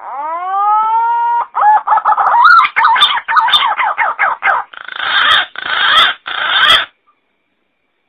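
Green pigeon (punai) call played as a lure: a whistle that rises and then levels off for about a second and a half, followed by a run of quick warbling, wavering notes, and ending with three harsher, hoarse notes.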